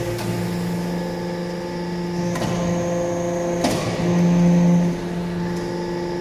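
Hydraulic briquetting press running: a steady hum from its motor and hydraulic pump, with two sharp clicks about two and a half and nearly four seconds in. The hum grows louder for about a second just after the second click.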